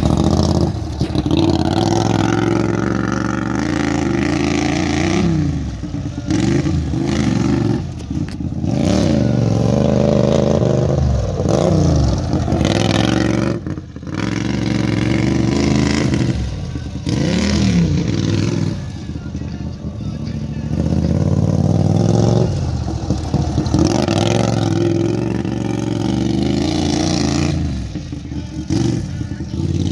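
Racing riding lawn mower's engine running hard, repeatedly revving up and dropping back. Its pitch rises and falls every few seconds as it throttles through the turns of a cone course.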